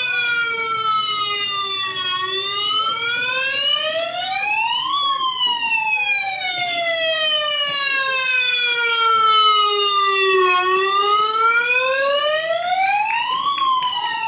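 A siren wailing, its pitch climbing for about three seconds and then sinking slowly for about five, twice over.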